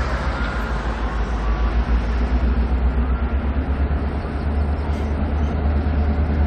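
Diesel locomotive hauling a passenger train, approaching from a distance: a steady low rumble.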